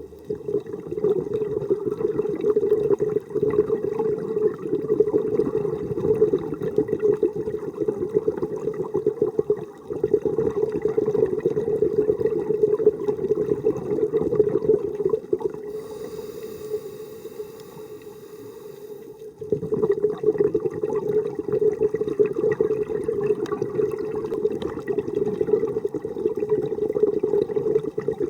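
Muffled underwater bubbling from scuba divers breathing out through their regulators, a rushing, gurgling noise that eases off for a few seconds a little past the middle and then resumes.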